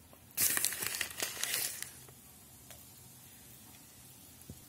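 Crinkling and rustling of a baking powder packet for about a second and a half as the powder is tipped into a glass mixing bowl, then faint room tone with one small click near the end.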